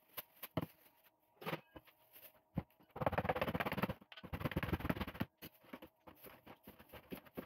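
Cheese balls and risoles being handled and packed into plastic bags: scattered light clicks, then two dense bursts of rattling and rustling, about three seconds in and again just after four seconds.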